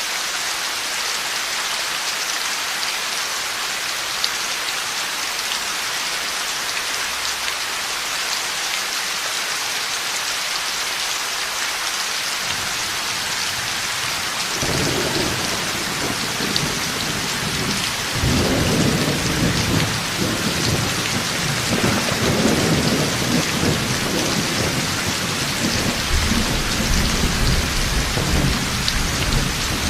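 Heavy rain falling steadily through a thunderstorm. Thunder starts rumbling about halfway through and grows louder, rolling on to the end.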